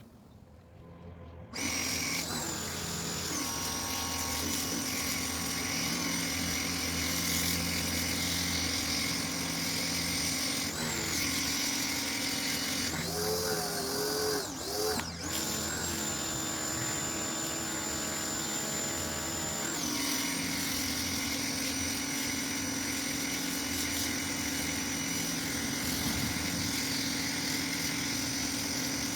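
Ryobi electric pressure washer starting up and running steadily with a high motor whine and spray hiss, the motor wavering briefly about halfway through.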